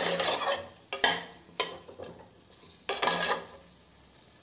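A spatula stirring and scraping chicken pieces frying in butter across the base of a pressure cooker, in four separate strokes.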